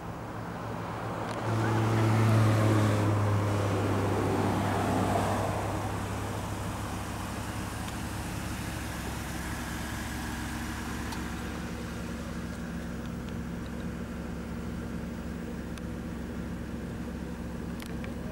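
A motor vehicle passes on the road, its engine hum and tyre noise swelling about a second and a half in and fading over the next few seconds. A steady low engine hum continues after it.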